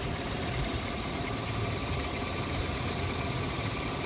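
High-pitched squeaking: a steady, rapidly pulsing high tone with no break.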